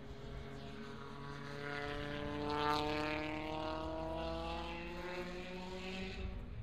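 A WTCC touring car's turbocharged 1.6-litre four-cylinder engine accelerating out of the corner, its pitch rising steadily. It is loudest a little under halfway through.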